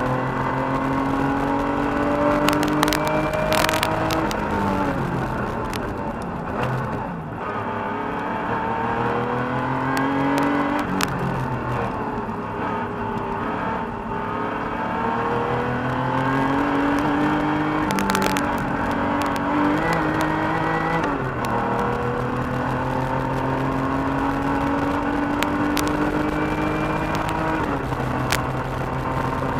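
The air-cooled flat-six engine of a 1985 Porsche 911 Carrera, heard from inside the cabin while driven hard. It rises in pitch under acceleration and drops back several times as the driver lifts, with a few sharp clicks along the way.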